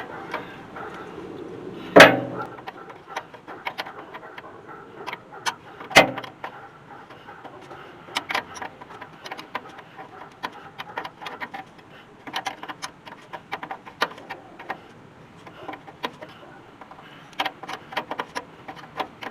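Wrench clinking against the brake line fitting at a 1976 Dodge D600's wheel cylinder as the corroded line nut is worked loose, a run of irregular light metallic clicks, with two sharp metal knocks about two and six seconds in.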